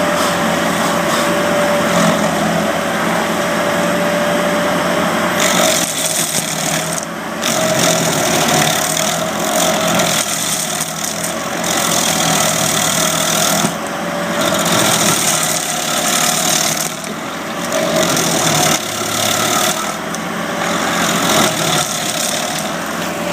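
Petrol-engined tree-cutting equipment running steadily under load, cutting wood. The cutting noise swells and drops every second or two over a steady engine tone.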